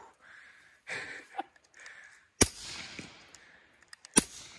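Two suppressed 9mm pistol shots through a Microtech Defense Industries R2K9 suppressor, about two seconds apart. The can is in its short K configuration, run wet with 147-grain rounds. Each sharp report is followed by a decaying echo rolling back from the surrounding terrain.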